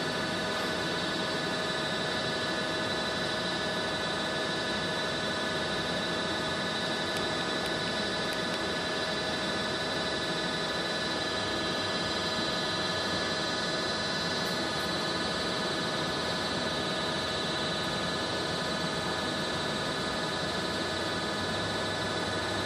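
Universal testing machine running with a steady hum made of many tones, as it loads a steel rebar in a tensile test.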